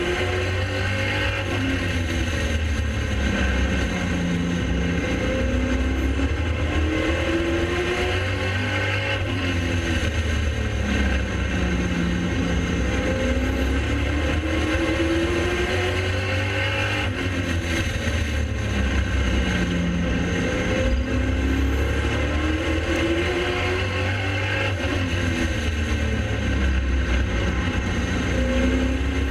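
Pro late model race car's V8 engine at racing speed, lap after lap. The pitch climbs on the throttle down each straight and drops off into each turn, about every seven and a half seconds.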